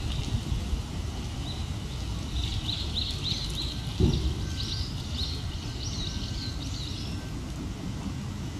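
Outdoor background rumble with a small bird singing a quick run of high chirps through the middle, and a single soft thump about four seconds in.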